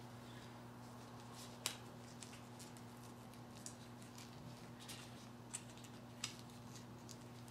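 Faint, scattered clicks and light handling noises from gloved hands working a rubber wiper blade refill, with one sharper click about a second and a half in, over a steady low hum.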